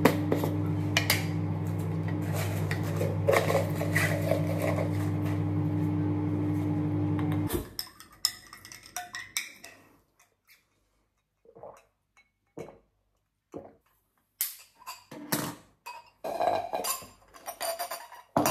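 Microwave oven running with a steady low hum, cutting off abruptly about seven and a half seconds in. After it stops come scattered light clinks and knocks of kitchenware.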